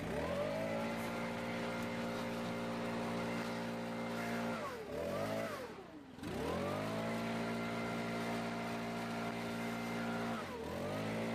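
Leaf blower engine run at full throttle, with the air blast rushing. The throttle eases off about four and a half seconds in, blips once, and opens fully again about six seconds in. It drops again near the end and revs straight back up.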